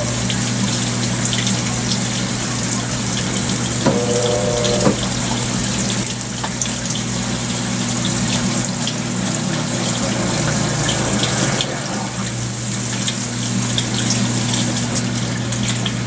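Consul 16 kg (CWL16AB) top-load washing machine draining: water rushing and splashing in the tub over a steady low hum of the drain pump and motor. A brief higher hum comes about four seconds in.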